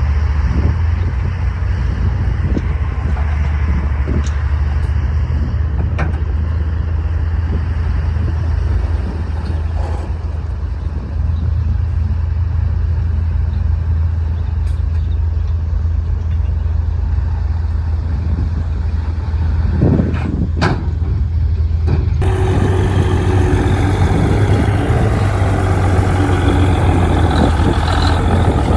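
Heavy diesel engine of earthmoving machinery running steadily, with a deep drone and occasional metallic knocks and clanks. About three-quarters of the way through, the sound turns abruptly brighter and busier, with a steady whine added.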